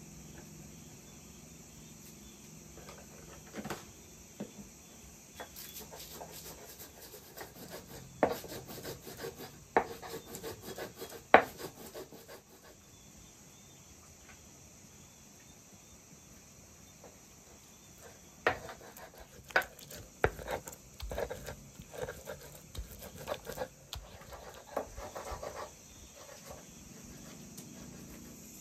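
Pickle being ground by hand on a flat grinding stone: the hand stone rubbing and scraping back and forth with sharp knocks. It comes in two spells with a quieter pause between, and the loudest knock falls about eleven seconds in.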